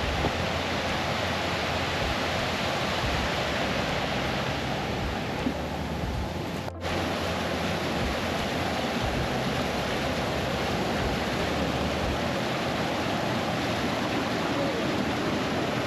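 Steady rush of a fast-flowing moorland stream, an even noise with a brief dropout about seven seconds in.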